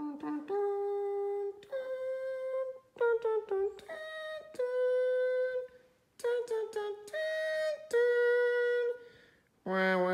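A voice humming a slow tune in short phrases of held notes, with brief pauses between phrases. Near the end a lower, sustained tone cuts in, dipping and rising once in pitch.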